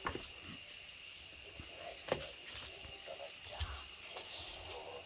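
Steady high-pitched insect chorus, with a few light knocks and footsteps.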